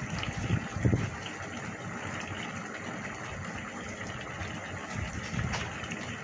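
Tomato-based shrimp caldereta simmering in a pan, the sauce bubbling with many small pops over a steady hum, with a low thump about a second in.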